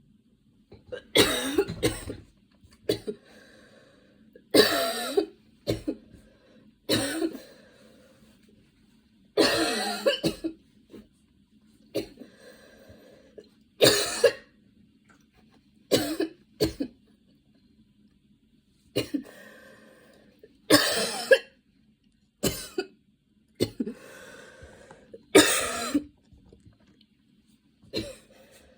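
A young woman coughing in repeated fits: about a dozen bouts of coughs, one every few seconds, with breaths between them.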